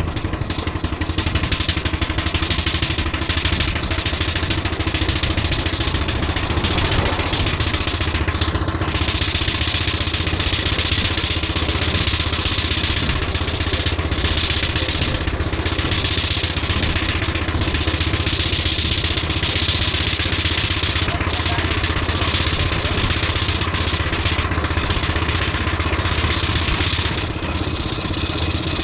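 Miniature steam traction engine running steadily as it drives along the road.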